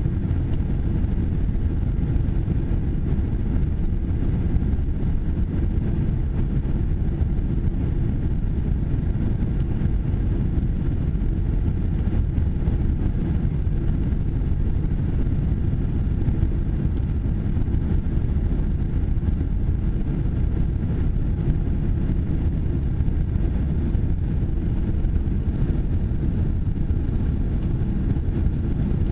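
Steady low rumble of an airliner's cabin noise during descent on approach to landing. The level stays even throughout.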